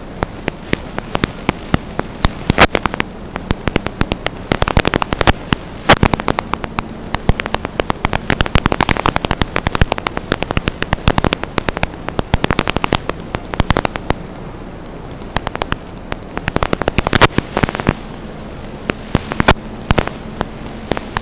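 Steady static hiss riddled with many sharp clicks and pops in dense clusters, the signal noise of an analog FPV video link recorded at the receiver, with a faint low hum underneath. The clicks thin out briefly about two-thirds of the way through.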